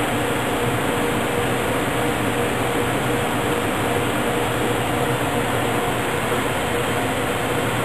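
Steady fan and air-handling noise from a running Ultratech Stepper 1700 lithography tool and its surroundings, an even whoosh with a faint steady hum under it that does not change.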